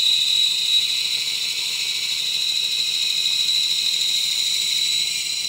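Bandsaw resawing a strip of 2x12 lumber into thin planking stock: a steady high hiss from the blade cutting through the wood, with a constant high-pitched tone over it.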